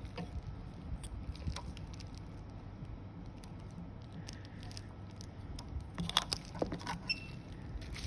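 Packaging and a gadget being handled during unboxing: scattered small clicks, taps and light rustling, with a cluster of louder clicks about six seconds in, over a steady low hum.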